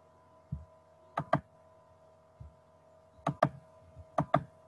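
Computer mouse clicking: three quick double-clicks, with a couple of softer knocks between them, over a faint steady electrical hum.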